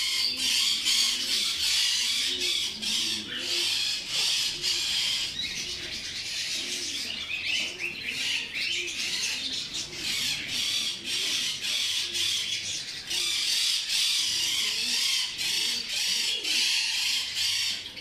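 Many small caged birds chattering and chirping at once: a dense, continuous din of high calls.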